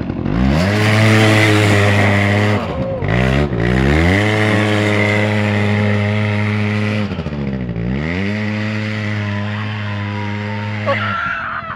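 Aeon Revo 100 ATV engine revving up and held at high revs under throttle, dropping off and climbing again twice, then easing off near the end.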